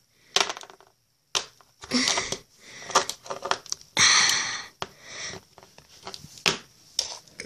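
Hands prying open and handling a small plastic Play-Doh Surprise Basket: irregular plastic clicks, crackles and scrunching, with a longer, louder scrunch about four seconds in.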